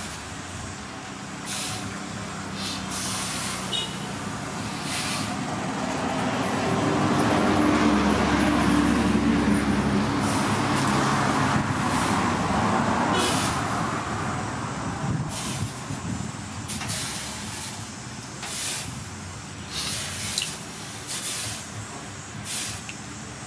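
Water splashed by hand onto a hot forged axe blade held in tongs, sizzling and spitting in short hissing bursts as each splash hits the steel: the edge being quenched by hand. A louder low hum swells and fades through the middle.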